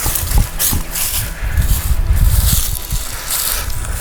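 Wind buffeting the microphone in uneven low gusts, over an irregular rustling and crunching of dry leaves and brush.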